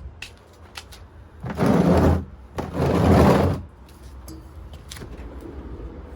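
Two loud rough bursts of scraping or rustling noise, about a second each, with a few light clicks, over the low steady hum of a wine cooler's compressor running on a newly replaced start relay.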